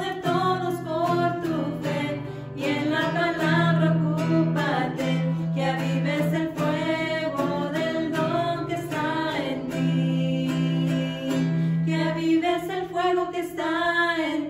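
Women singing a Spanish-language worship song together, accompanied by an acoustic guitar.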